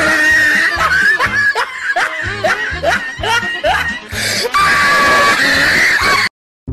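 Music with a steady beat, and over it a woman screaming and laughing in short, repeated rising cries; the sound cuts off suddenly near the end.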